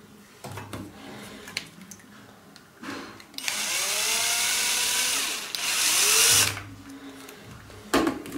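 Power drill-driver driving a screw to fix a new roller wheel onto a shower-cabin sliding door frame, running in two bursts, the first about two seconds long, its motor pitch rising and falling. Light handling clicks before it and a knock near the end.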